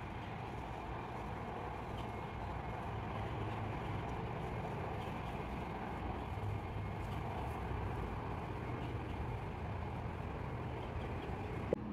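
Steady outdoor background noise with a low rumble and no distinct events, then a brief click near the end.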